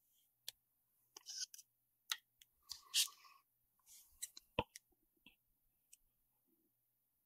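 Faint scissors and a thermal pad sheet being handled and cut: scattered soft clicks and short crisp snips, the loudest about three seconds in, stopping about five seconds in.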